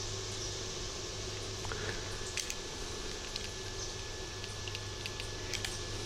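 Steady hum and hiss with a faint high whine, and a few light clicks and taps from handling a small hand-held meter.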